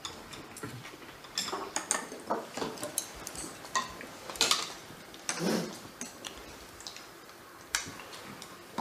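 Light clicks and clinks of eating bowls and utensils being handled, irregular and scattered, with a louder knock about halfway through.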